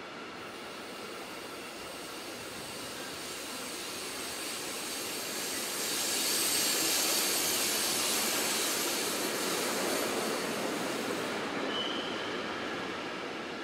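A train rolling past, growing louder to a peak about halfway through and easing off near the end, with a thin high squeal of wheels on rail over the rolling noise.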